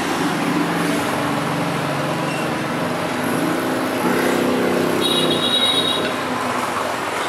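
Steady road traffic noise with a motor vehicle engine running and passing, its pitch rising around four seconds in. A brief high-pitched whine comes about five seconds in.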